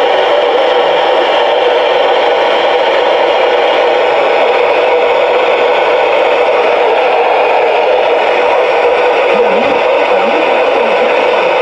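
Radio static: a steady hiss from a weak, barely received station.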